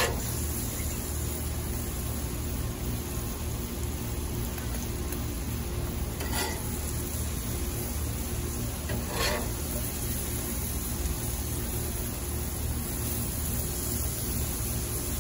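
Steak, peppers and onions sizzling on a hot Lodge cast iron griddle over a gas grill, a steady hiss over a steady low rumble. A metal spatula scrapes the griddle briefly twice, about six and nine seconds in.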